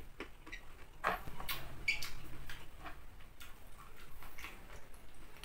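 Close-up chewing of raw vegetables: irregular crisp crunches and clicks as the pieces are bitten and ground.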